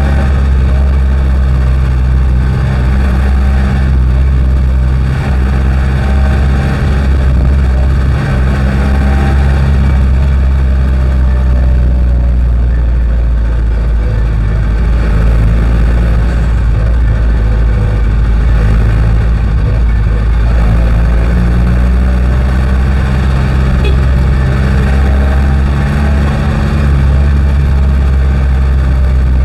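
Jeepney's diesel engine running as the jeepney drives, heard from the front passenger seat as a loud, low, steady drone with road noise. Its pitch rises and falls a few times as it speeds up and slows down.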